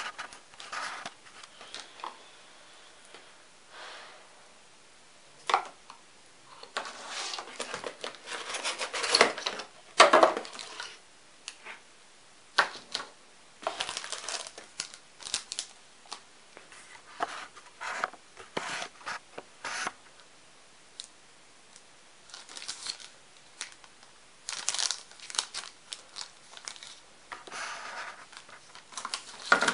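Packaging being handled and opened: irregular crinkling and tearing in short bursts with brief pauses, loudest about a third of the way in.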